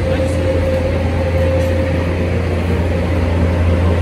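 Steady machine drone: a low hum with a constant higher whine over it, unchanging in pitch.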